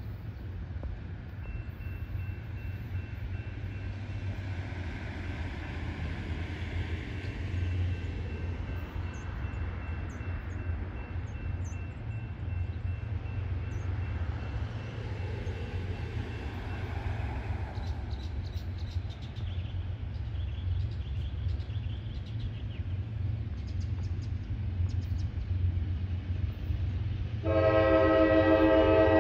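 A low, steady rumble as CSX diesel freight locomotives approach. Near the end the lead locomotive's air horn starts blowing a loud, many-toned chord, sounded for the grade crossing.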